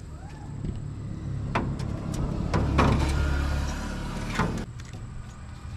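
Air filter element being slid into the metal air cleaner housing of a Hitachi EX120-5 excavator: a scraping, rubbing noise with a few knocks as it is pushed home, loudest midway, stopping suddenly near the end.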